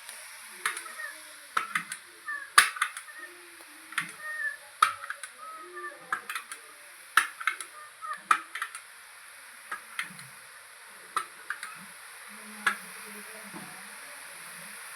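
Hand-held metal sev press being squeezed to push gram-flour karapusa dough out, with repeated sharp clicks and knocks, and a faint sizzle of hot oil growing slightly near the end.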